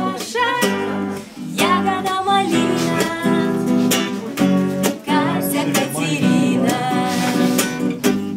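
A woman singing to a strummed acoustic classical guitar; the voice comes in short phrases while the guitar strums on.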